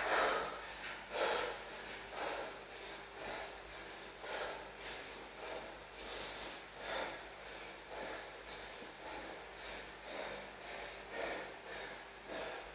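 A man breathing hard and fast, a heavy breath about once a second, winded from a set of chin-ups.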